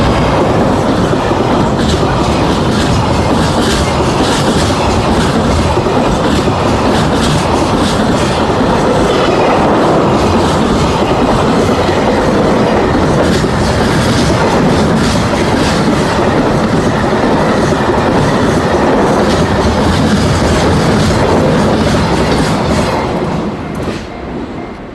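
Freight train passing close by, its wheels clattering rhythmically over the rail joints in a loud, steady rush that dies away near the end.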